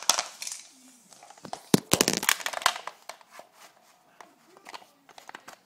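Handling noise from fingers rubbing and tapping on the recording phone close to its microphone: a cluster of sharp crackling clicks and rustles in the first three seconds, then a few faint scattered ticks.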